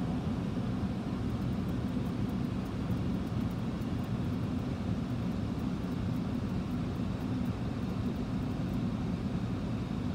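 Steady rumble of road and engine noise from a car travelling on an expressway, heard from inside the moving car.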